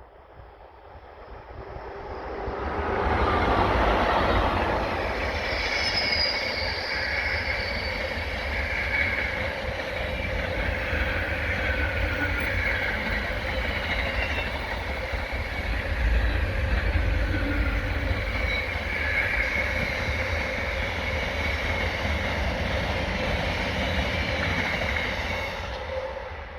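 Pair of class 90 electric locomotives and their train passing: the sound builds over about three seconds, then a steady rush of wheels on rail with high-pitched squeals, fading slightly near the end.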